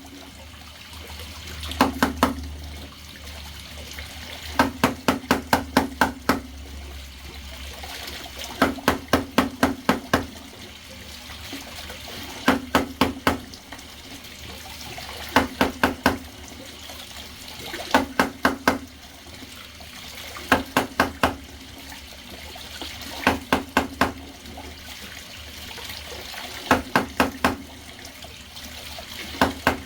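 Water running from a tap, with a steady hiss, broken every two to three seconds by quick bursts of four to six sharp knocks as something is handled or tapped against a hard surface.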